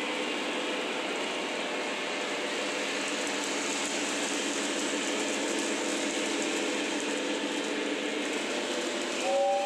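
O scale three-rail model freight train running past: a steady clatter of metal wheels rolling over the track joints. Near the end a short two-note horn sounds.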